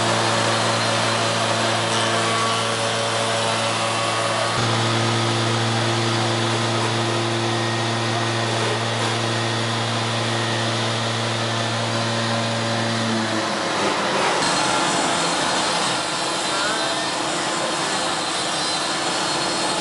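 Soukup Crafter timber-window machining centre running on a wooden workpiece: a steady motor hum over the noise of cutters in wood. The hum stops about two-thirds of the way through, leaving a steady machinery noise.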